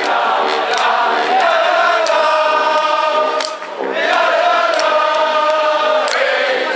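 Street brass band of sousaphones, trumpets and saxophones holding two long chords, with a short break about halfway through, over scattered bass drum and cymbal strokes.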